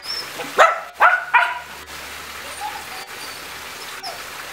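Small dog barking three times in quick succession, about half a second to a second and a half in.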